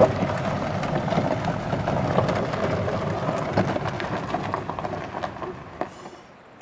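Vehicle rolling along a dirt and gravel road, its tyres crunching and crackling, easing off and going quiet about six seconds in as it slows to a stop.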